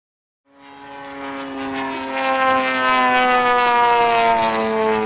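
Large radio-controlled aerobatic plane's engine and propeller in flight, fading in about half a second in and droning loudly, its pitch falling slowly.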